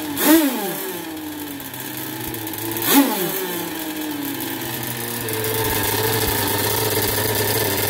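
Gas engine of a CP Mods–modified RC boat running on the stand out of the water, blipped twice with quick rises and falls in pitch, near the start and about three seconds in, then settling into a steady idle.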